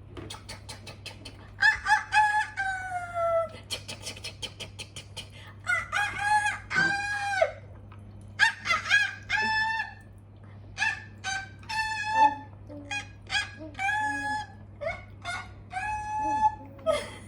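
Chickens calling: a rooster crowing and hens clucking in a string of repeated high calls, with runs of rapid clucks near the start and about four seconds in.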